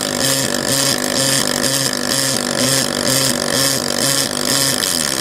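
Pulsed MIG welding arc from a Fronius Fortis welder in synchro-pulse mode: a loud, steady buzzing hiss that throbs in a regular beat about twice a second, as the machine switches between its two pulse levels while a bead is pushed along.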